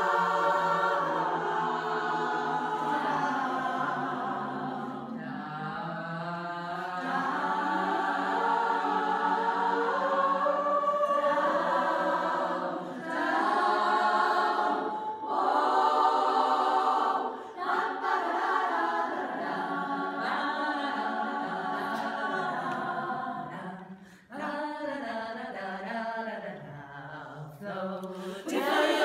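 A thirty-woman vocal ensemble singing a cappella, sustained chords in several parts, with short breaks between phrases about 17 and 24 seconds in.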